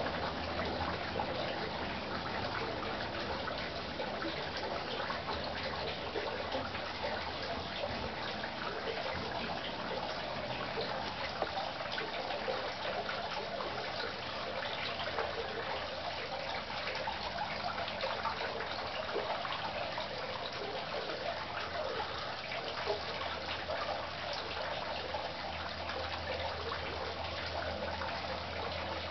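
Steady trickling, splashing noise of running water, even in level throughout.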